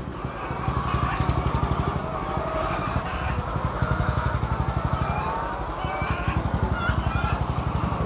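A small engine running steadily with a fast, even throb, with laying hens clucking softly in their cages over it.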